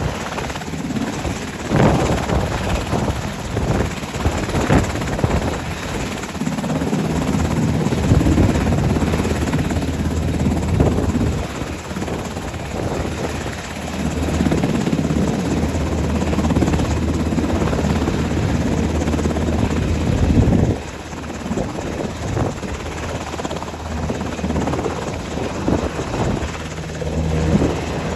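UH-60 Black Hawk helicopters running: the rotor of one turning on the ramp, mixed with another flying off overhead. There is a steady deep rotor drone with a rapid beat, and it drops in loudness for a moment about two-thirds of the way through.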